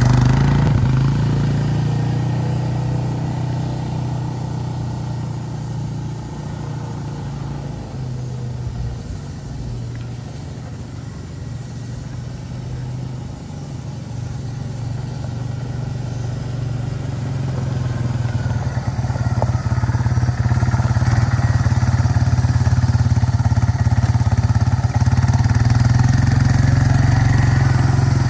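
2003 Suzuki Eiger 400 automatic ATV's single-cylinder four-stroke engine running at a steady, even pitch as the quad is ridden. It fades as it moves away toward the middle, then grows louder again as it comes back.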